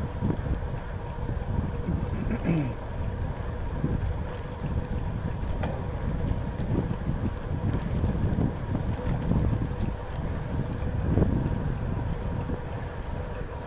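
Wind buffeting the microphone of a rider on the move, a continuous low rumble with a faint steady hum through it.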